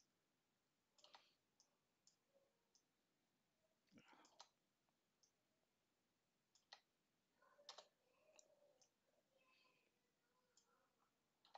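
Near silence with scattered faint clicks of a computer mouse and keyboard, a dozen or so short, irregular taps.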